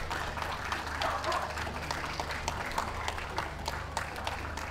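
Crowd applauding: many scattered hand claps, with some voices and a low steady hum underneath.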